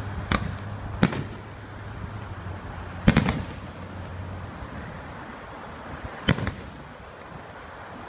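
Aerial fireworks shells bursting overhead: four sharp bangs a second to three seconds apart, the loudest about three seconds in followed by a brief crackle.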